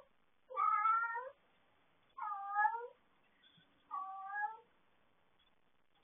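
A cat meowing three times, each meow a little under a second long and about a second and a half apart.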